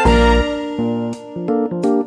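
Background music: a keyboard melody of separate, plucked-sounding notes over a deep bass note at the start.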